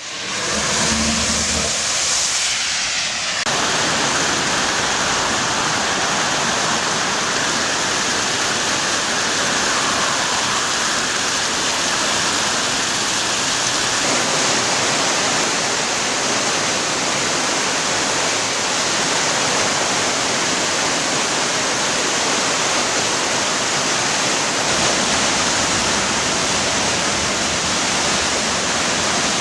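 Floodwater rushing through a desert river channel swollen by heavy rain, a loud, steady rush of water.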